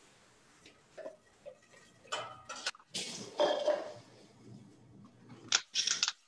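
Pureed tomatoes being scraped with a spatula out of a plastic container into a saucepan: a run of separate scrapes, plops and knocks against the container and pan, loudest near the end.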